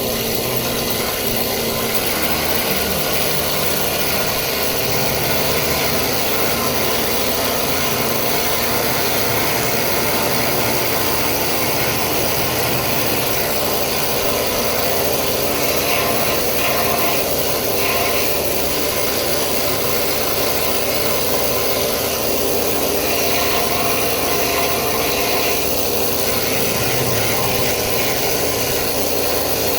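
Needle guns chipping old paint off metal, a loud, steady, dense chatter that goes on without a break: a really annoying noise.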